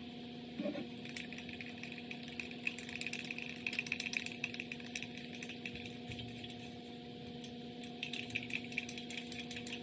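Aerosol spray paint can hissing in uneven short bursts with a faint crackle, over a steady low electrical hum.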